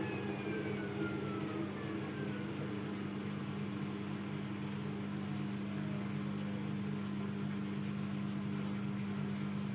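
Haier washing machine winding down at the end of its spin cycle: a steady low hum with a motor whine falling slowly in pitch as the drum slows.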